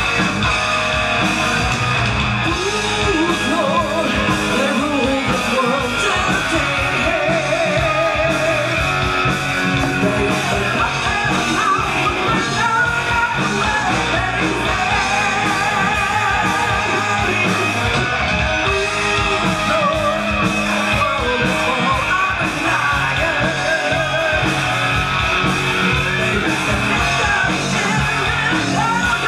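Rock band playing live with electric guitars, bass guitar and drums, and a woman singing lead over them, her held notes wavering in vibrato.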